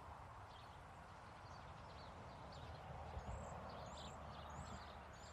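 Faint background ambience: a low rumble with short, high chirps scattered through it, repeating about every two-thirds of a second in the second half.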